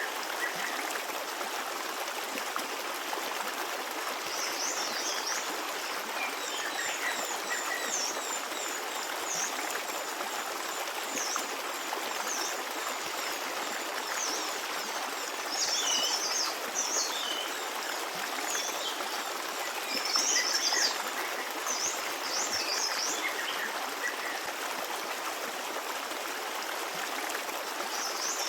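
Small stream running steadily over stones, with birds chirping in short high bursts, busiest about a third and two thirds of the way through.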